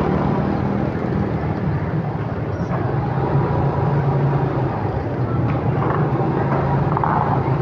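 Motorcycle engine running at low speed with a steady low hum, with the general noise of a busy street market around it.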